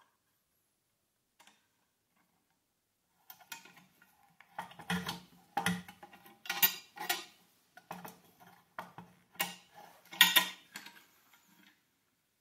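Ball joint press being screwed down by hand on a swingarm bearing and collar: irregular metallic clinks and clanks from the steel forcing screw and its sliding T-handle, about a dozen over the last eight seconds, some louder with a short ring.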